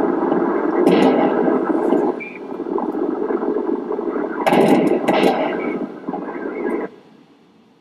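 Harsh, noisy old archival audio, like a worn radio or news recording, with sharp cracks about a second in and again about four and a half seconds in. It cuts off abruptly near the end.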